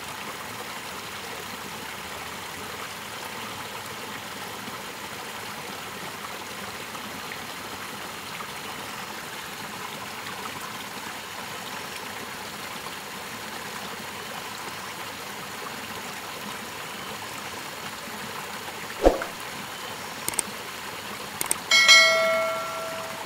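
Water trickling steadily over a rock into a small ditch pool. Near the end comes a subscribe-button sound effect: a sharp thump, a couple of mouse clicks, then a bell ding that rings out for about a second.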